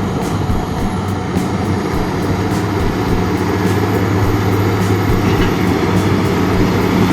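Heavy diesel machinery engines running at a steady, low drone, with a few faint clicks now and then.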